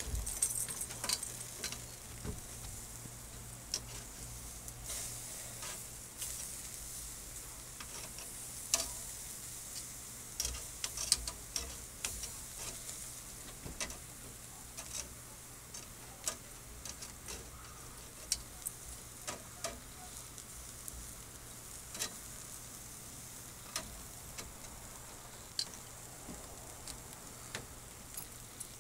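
Lobster tails and vegetables sizzling on a grill grate over hot charcoal, a steady hiss broken by frequent sharp pops and clicks.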